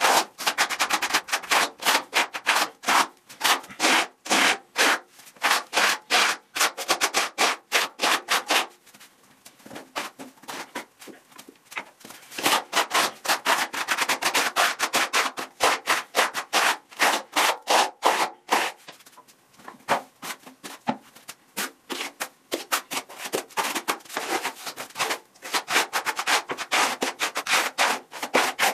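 Flat steel plastering trowel scraping across a wall as it spreads and smooths a thin second skim coat of lime-based render, in rapid repeated strokes. The strokes ease off twice, about a third and two-thirds of the way through.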